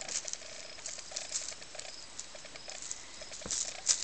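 Crinkly rustling of a tinsel-and-feather wand cat toy as it is swished about, in short irregular bursts that grow louder near the end, with a soft knock about three and a half seconds in.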